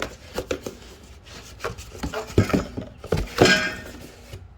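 Rustling and clicking of packing material as a small potted plant is pulled out of its shipping box, irregular, with two louder rustles about two and a half and three and a half seconds in.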